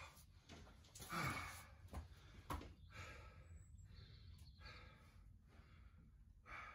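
A man's heavy breaths and sighs of effort, with a single light knock about two and a half seconds in.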